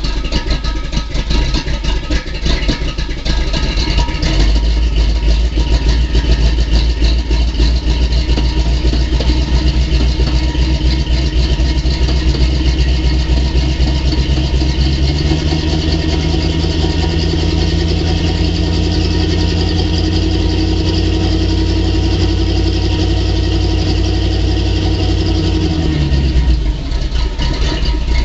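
Old Ford pickup's engine idling on a cold start, smoking from the exhaust. About halfway through the engine speed steps up and holds steady, then drops back near the end. The engine is worn out, with a flat cam and recessed exhaust valves.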